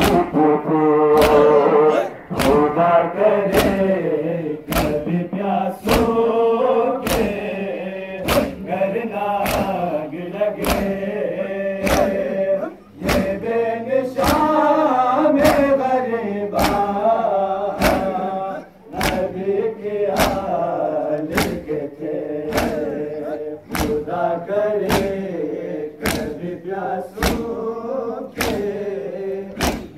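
A crowd of men chanting a Muharram noha (lament) in unison, with sharp, evenly spaced chest-beating slaps (matam) keeping a steady beat a little faster than once a second.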